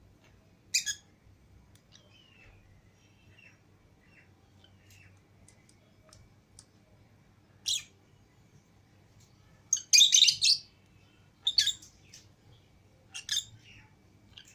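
Pet lovebirds (Fischer's and lutino) giving short, shrill chirps: single sharp calls about a second in and past the middle, then the loudest flurry of calls about ten seconds in and a few more after, with softer chirps in between.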